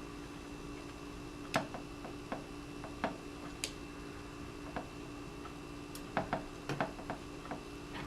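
Small, scattered clicks and taps of Tippmann TPX paintball pistol parts being handled and fitted during reassembly, with a cluster of clicks near the end, over a steady faint hum.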